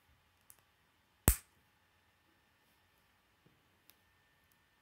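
Plastic K'nex building pieces being handled and snapped together: one sharp, loud click about a second in, then a few faint clicks.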